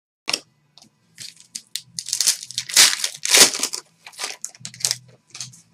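Foil trading-card pack wrapper being torn open and crinkled in the hands: a run of sharp crackles, loudest in the middle.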